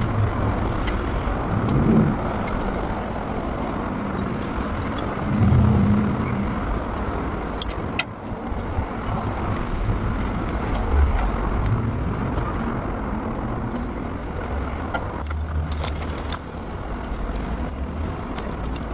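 Steady outdoor rumble of wind and road traffic. A few small clicks come through as plastic MC4 solar-cable connectors are snapped together.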